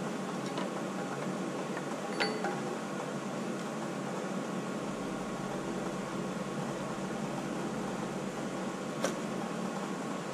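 Metal parts clinking sharply twice as a governor housing is worked onto a Detroit Diesel 3-53 engine's gear-train housing: one clink about two seconds in with a short ring, a lighter one near the end. Under it runs a steady background hum.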